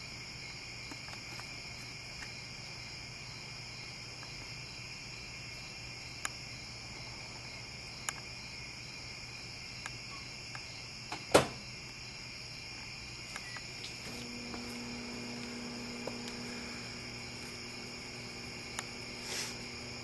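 Microwave oven being loaded and started. There are a few light clicks and one sharp knock about eleven seconds in, then a low electrical hum starts a little past halfway as the oven runs. A steady high-pitched background hiss or whine runs underneath.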